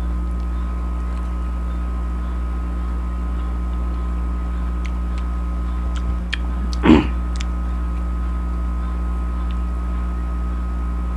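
A steady low electrical hum, with a few faint clicks from eating hand-held fruit and one brief short sound about seven seconds in.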